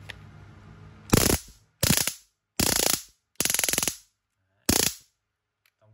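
928-type handheld stun gun arcing across its electrodes: five short bursts of loud, rapid electric crackle, each under a second long, showing the shock function firing at full strength.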